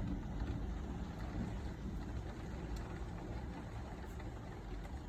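Downpour during a thunderstorm, with a low rumble of thunder slowly dying away.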